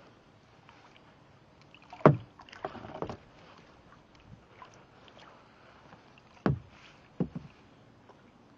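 Water splashing in two short bursts about four seconds apart, each a sharp slap followed by a few smaller splashes, over a faint steady hiss.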